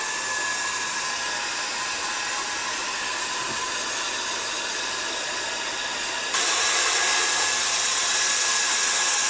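Comgrow Z1 Pro 20 W diode laser module running while it cuts plywood: a steady fan rush with a couple of faint steady whines, stepping suddenly louder about six seconds in.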